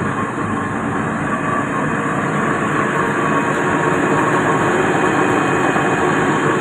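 Komatsu PC200-8 excavator's common-rail diesel engine running steadily at low idle.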